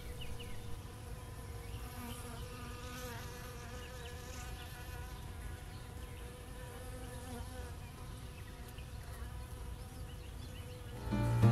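Honey bees buzzing at a hive entrance, a steady hum of wingbeats. Music comes in right at the end.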